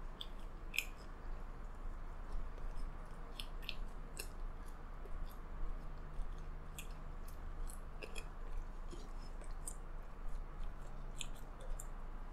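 Close-miked chewing of sauce-soaked fries, with many short, irregular wet mouth clicks and smacks.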